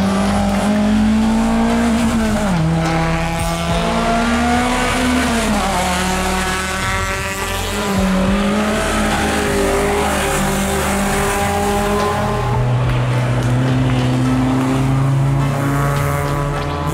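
Hill-climb race car engine running hard at high revs, its pitch dropping sharply at each gear change and climbing again as the car accelerates uphill past the listener.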